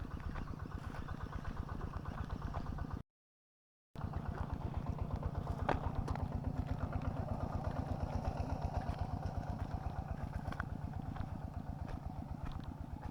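A small engine running steadily with a fast, even beat, cut off by about a second of dead silence some three seconds in, then running on.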